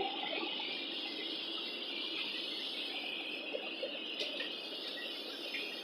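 Steady airliner cabin noise in flight, an even hiss without changes.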